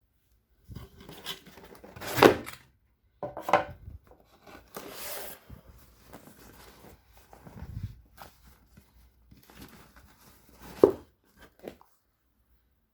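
Unboxing handling noise: a shoebox and its paper wrapping being opened and rustled, with scrapes and a few knocks, the loudest a couple of seconds in and another near the end.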